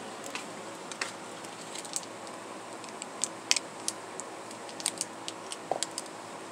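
Scattered light clicks and ticks, a dozen or so at uneven intervals, the sharpest about three and a half seconds in, over a steady room hum.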